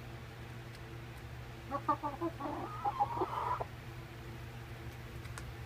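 Young hens clucking: a quick run of short clucks begins about two seconds in and runs into a denser, drawn-out stretch of clucking that stops after about two seconds.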